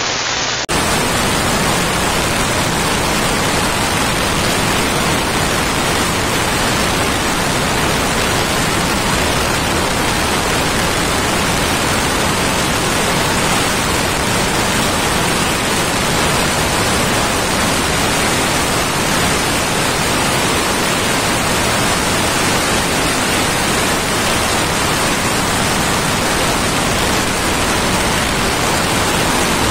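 Loud, even hiss like TV static, steady and unchanging, with no engine note or voice heard through it.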